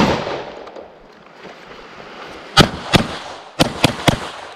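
A gunshot's echo dies away, then a semi-automatic pistol fires five shots in quick succession starting about two and a half seconds in, the last three coming faster.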